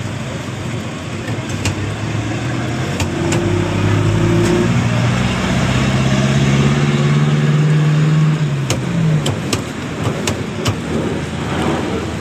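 A motor vehicle engine running close by, growing louder to a peak about seven to eight seconds in and dying away about nine seconds in, over a steady street hum. A few sharp clacks come from a hand-lever potato fry cutter being pressed.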